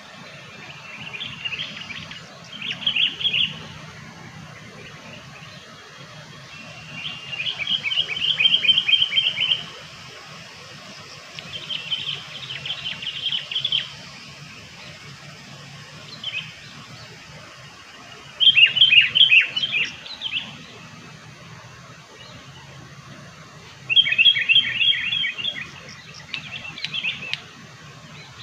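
Sooty-headed bulbul (kutilang) song used as a lure call: about six phrases of quick, bubbly repeated notes, each a second or two long, with pauses of a few seconds between them. A faint low hum runs underneath.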